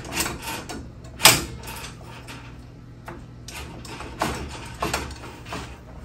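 Metal-on-metal handling at a garage door's torsion shaft and end drum: a sharp clack about a second in, then a few lighter clicks and knocks as tools are worked on the drum.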